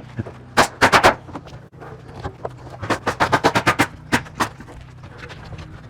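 A run of sharp knocks: three close together about a second in, then a fast rattle of about ten in under a second, then two more. A steady low hum runs underneath.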